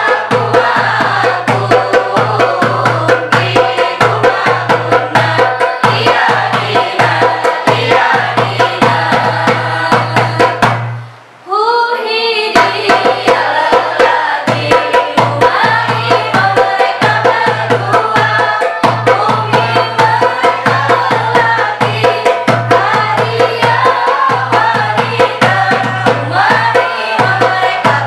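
A group of students singing a memorisation song of Arabic pronoun forms (dhamir) in unison, accompanied by a darbuka goblet drum played with the hands in a steady rhythm. The song breaks off briefly about eleven seconds in, then the singing and drumming pick up again.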